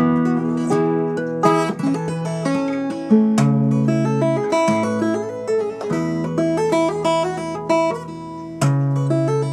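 Background music: a plucked and strummed acoustic guitar with a bass line, notes changing every half second or so.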